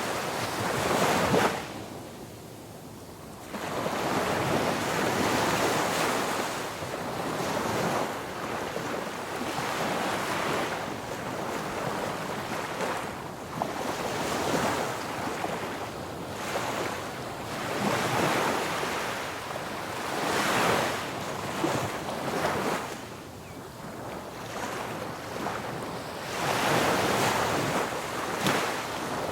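Ocean surf breaking on a beach: waves rush in and wash back in repeated swells every few seconds, with a short lull about two seconds in and a loud swell near the end. Some wind noise is on the microphone.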